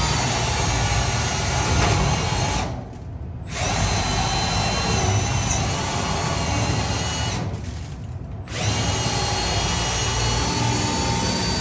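Cordless drill spinning an adjustable sheet-metal circle cutter, cutting a round hole in a furnace cabinet's sheet-metal panel. It runs in three spells, with short pauses about three seconds in and about eight seconds in.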